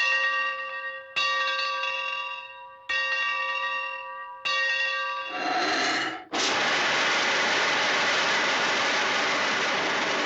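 A locomotive bell sound effect rung at an even pace, each stroke ringing on and fading before the next, three strokes about every second and a half. About six seconds in it gives way to a steady loud hiss of escaping steam.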